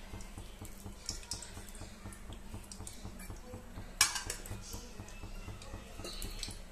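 Faint ticks and crackles from cooking oil heating in an aluminium pressure cooker, over a low steady hum, with one sharper metallic clink about four seconds in.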